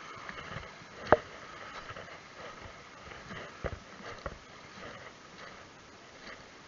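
Footsteps on a stony, rocky shore: a few sharp clacks of stones underfoot, the loudest about a second in and two more a little past the middle, over a faint hiss.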